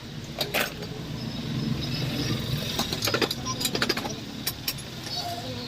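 Scattered sharp metal clinks and knocks, several in quick succession about three to four seconds in, over a steady low hum: tools and parts being handled during shock absorber repair work.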